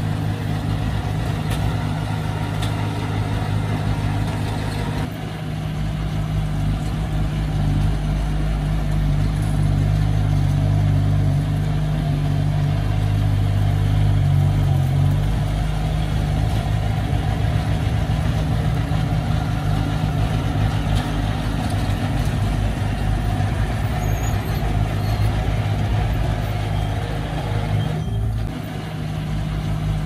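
Heavy diesel engine running steadily: a dump truck unloading dirt, then a small crawler bulldozer pushing dirt. The sound changes abruptly about five seconds in and again near the end.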